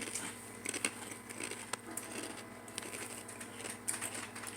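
Faint, irregular small crackles and clicks of crunchy queso-flavoured chips being handled and chewed, over a low steady hum.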